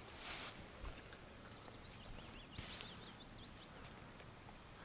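Faint outdoor ambience in which a small bird sings a quick, wavering, chirping phrase in the middle. There are two brief soft rustles, one at the start and one about two and a half seconds in.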